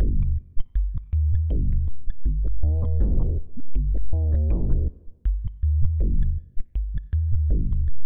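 Electronic background music: a synthesizer over a drum-machine beat with a heavy bass line, in a repeating pattern.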